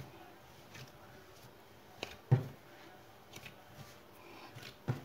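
Yeast dough being kneaded by hand on a floured work surface: faint, soft thuds and slaps of the dough now and then, the clearest a little over two seconds in and again near the end.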